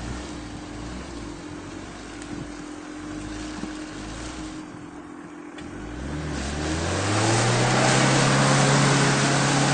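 Second-generation Mitsubishi Pajero's engine running at low revs while the SUV pushes through deep mud. About six seconds in it revs up, then holds high revs, louder, over a rushing hiss.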